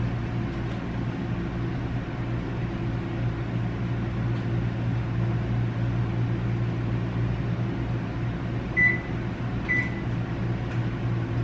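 Steady low hum, with two short beeps about a second apart near the end from an electric range's oven control panel as its keys are pressed.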